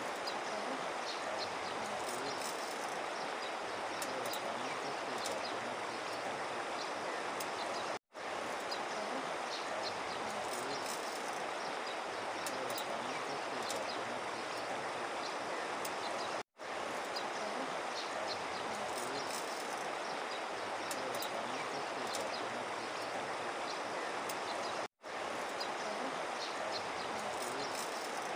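Steady rush of a shallow river running over a gravel bed, cut by three brief dropouts to silence about eight seconds apart.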